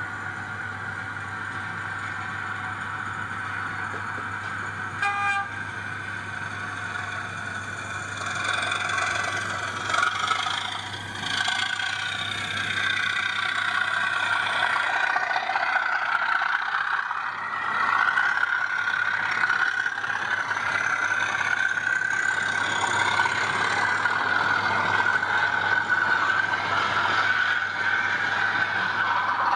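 Sound-fitted 00 gauge model diesel locomotive with its engine sound running steadily, and a short horn toot about five seconds in. From about eight seconds in, the engine sound grows louder and its pitch shifts and wavers.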